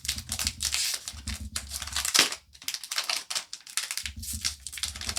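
Foil booster pack wrapper crinkling and tearing as it is worked open, a rapid run of crackles with a short lull about halfway through.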